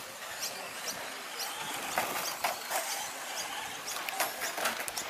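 RC short course trucks racing on a dirt track: short high-pitched motor whines and squeaks over a steady hiss, with a few sharp knocks about two seconds in.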